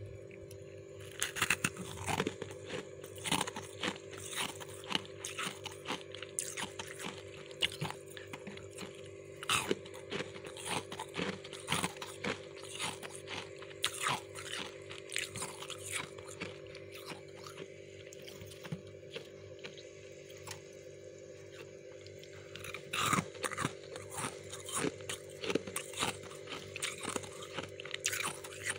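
Chewing and biting crispy refrozen freezer frost: a fast run of sharp crunches that thins out for a few seconds past the middle and picks up again near the end, over a steady hum.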